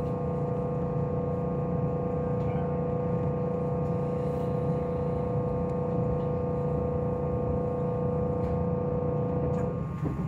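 Meitetsu 2000 series μSKY train running at speed, its electric traction drive giving a steady humming tone over the low rumble of wheels on rail. The tone cuts off suddenly near the end, leaving only the running noise.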